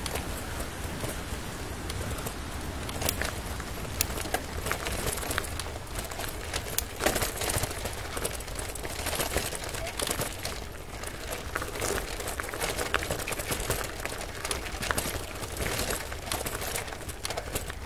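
Bicycle rolling along a rough trail: tyres crunching on the surface and the bike rattling with many small irregular clicks and crackles, over a steady low wind rumble on the microphone.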